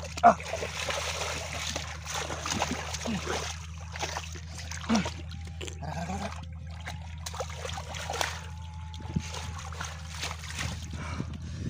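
Hands splashing and scooping in shallow muddy water, digging mud out of a hole in the bottom, with water trickling and sloshing; one loud splash comes near the start. A steady low hum runs underneath.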